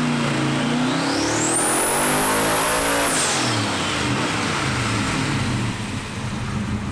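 Twin-turbo 427 cubic inch small-block Ford V8 revving on a hub dyno. Its pitch climbs about half a second in, holds with a high whine for about a second and a half, then drops back around three seconds in and runs on at lower revs. The engine is being tested for a number 8 cylinder that isn't firing properly.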